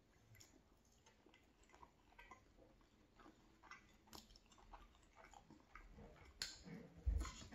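Faint close-up chewing of fried breakfast potatoes and scrambled eggs, with small wet mouth clicks and a few sharper clicks of the fork. Near the end, a louder low thumping of stomping.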